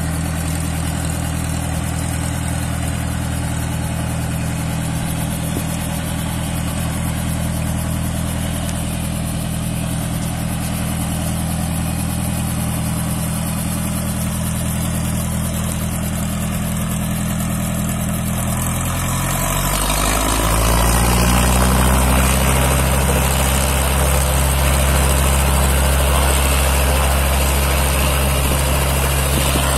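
Robinson R22 helicopter running on the ground after startup: its four-cylinder Lycoming piston engine and turning rotor make a steady, even engine note. About two-thirds of the way through the pitch shifts and the sound grows louder, then holds steady again.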